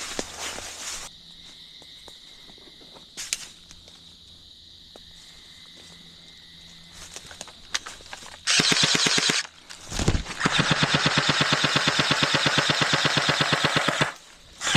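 Airsoft gun firing on full auto, loud: a burst of about a second, then after a short pause a long burst of about four seconds, the shots coming in quick, even succession.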